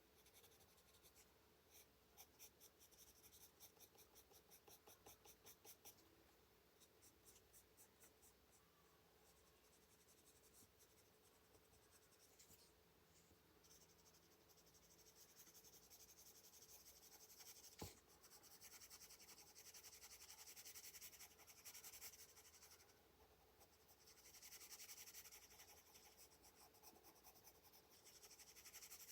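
Faint scratching of a colored pencil on paper, in runs of quick back-and-forth shading strokes, with a single sharp click about two-thirds of the way through.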